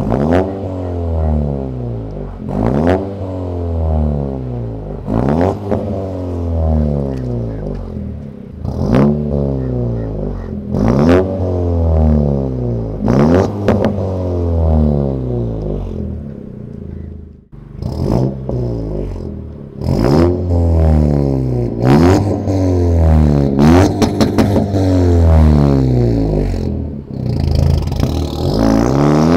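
Honda Civic FK7's 1.5-litre turbocharged four-cylinder blipped repeatedly through an aftermarket Max Racing loop-series catback exhaust with twin tips. About every two seconds the revs rise quickly and fall back, with a sharp crack at the top of each rev. Near the end it accelerates away.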